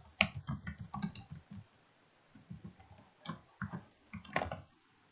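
Computer keyboard being typed on: a quick run of irregular keystroke clicks, a pause of about a second, then another run of keystrokes.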